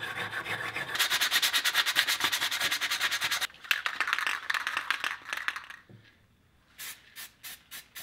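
An aerosol spray-paint can shaken hard, its mixing ball rattling rapidly for several seconds, then several short bursts of spray hissing near the end as paint goes onto a small metal bracket.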